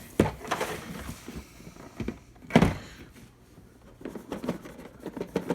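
Cardboard board-game box lid being worked loose: rubbing and scraping of cardboard with several knocks, the loudest about two and a half seconds in, and a few small clicks near the end.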